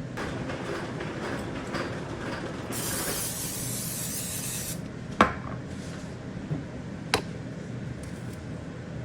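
A spray hiss lasting about two seconds, starting and stopping sharply, over the steady hum of a kitchen exhaust fan. A little later come two sharp ringing clinks, the first the loudest, with a soft knock between them.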